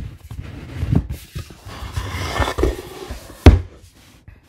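Handling noise of a model rocket: its nose cone rubbing and scraping as it is pushed into the body tube, with light knocks. Then a single sharp knock about three and a half seconds in as the rocket is set down.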